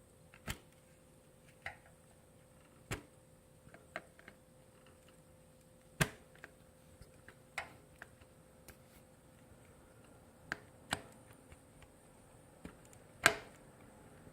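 Screwdriver tip clicking and scraping against a taped-up plastic wiring connector, the Yamaha FZ-07's auxiliary DC plug, as it is worked back and forth to split the tape. About a dozen sharp, irregular clicks, the loudest near the end.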